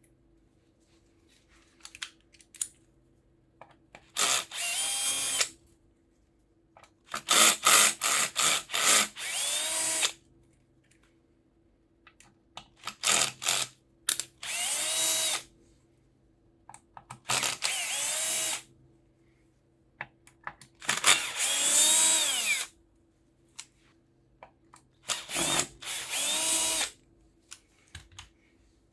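Power drill-driver running in six short bursts, each starting with a few quick trigger blips and then spinning up and down in pitch, as screws are driven out of a Bosch Performance Line CX Gen 2 e-bike motor casing.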